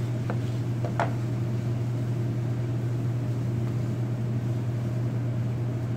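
A steady low mechanical hum, like a kitchen fan or appliance motor, runs throughout. Twice in the first second, a knife taps through pineapple onto a cutting board.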